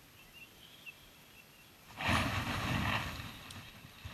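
Faint outdoor background, then about two seconds in a sudden burst of rumbling, rustling noise right on the microphone, lasting about a second before fading back down: the camera being handled or buffeted as the view is moved.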